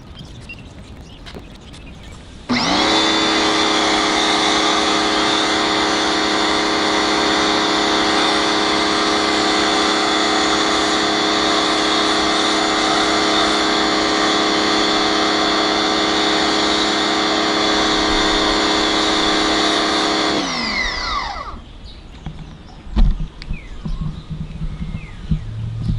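Electric pressure washer motor switching on abruptly and running at a steady pitch for about eighteen seconds, then shutting off and winding down with a falling pitch.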